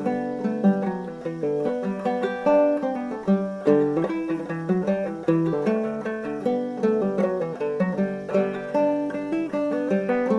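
Background music: fingerpicked acoustic guitar playing a quick run of plucked notes.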